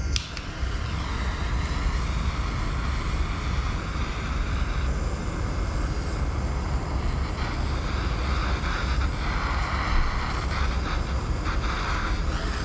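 Handheld propane torch lit with a sharp click, then burning with a steady roar as it heats a metal branding iron.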